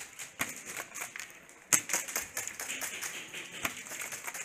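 Scattered sharp clicks and knocks at an uneven pace of several a second, the loudest a little under two seconds in.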